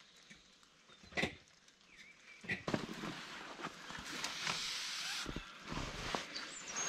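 Handling noise of a rope being fed by gloved hands over the concrete rim of a well: a sharp tap about a second in, then rustling and scraping with small knocks from about halfway.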